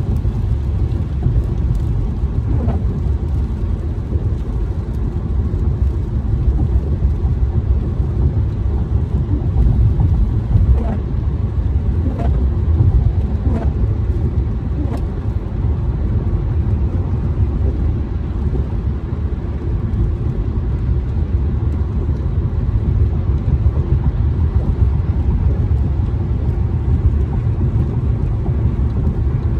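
Steady low rumble of a car driving on a wet freeway, heard from inside the cabin: tyre and road noise with the engine underneath.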